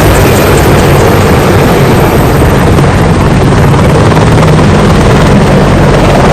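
Helicopter sound: loud, steady rotor and engine noise with a low hum underneath, unchanging throughout.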